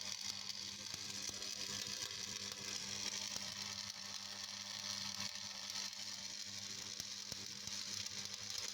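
Steady machine hum with a high hiss and scattered faint ticks.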